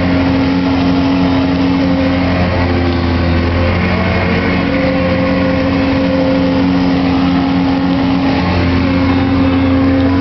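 Evinrude 28 hp two-stroke outboard motor running steadily at cruising speed, with the rush of the boat's wake and water. Its pitch shifts slightly a couple of times.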